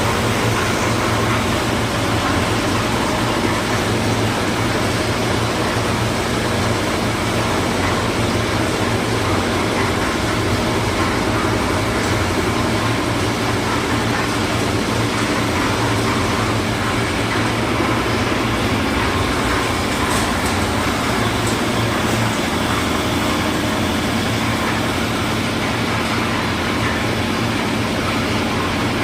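Concrete mixer's engine running steadily, a continuous low hum.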